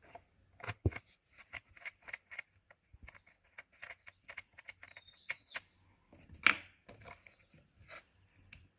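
Small clicks and metallic taps of a tool working loose the positive terminal screw on an ATV battery, irregular throughout, with a brief squeak about five seconds in and one louder knock about six and a half seconds in.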